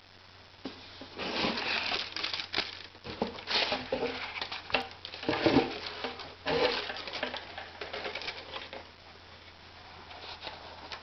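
Cardboard shoebox and tissue paper being handled: irregular rustling, crinkling and small knocks as the lid is opened and a running shoe is lifted out of its wrapping. The handling dies down about 9 seconds in.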